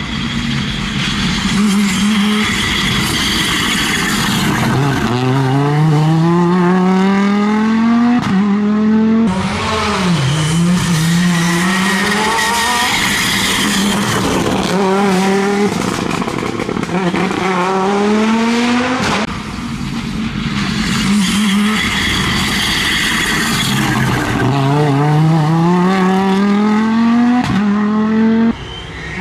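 Audi Quattro S1 rally car's five-cylinder engine at full throttle. It revs up through each gear, the pitch climbing and then dropping sharply at every upshift, over several runs of hard acceleration.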